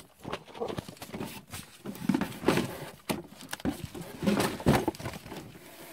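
Handling noise: irregular small clicks, knocks and rustles as a plastic toy motorbike is moved about and set down on a cloth.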